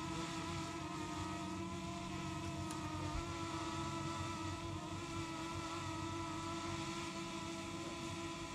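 A steady motor drone with several held tones that barely change in pitch.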